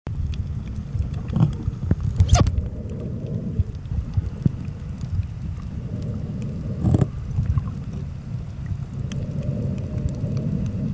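Heard underwater: a steady low rumble of water with scattered sharp clicks and crunches, the scraping bites of a parrotfish eating coral. Two louder crunches stand out, about two and seven seconds in.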